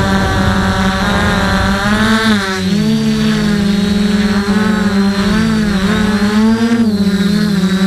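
The four brushless motors and propellers of a DJI F450 quadcopter, heard from a camera mounted on the frame: a loud, steady hum whose pitch wavers up and down as the motors change speed while it flies low.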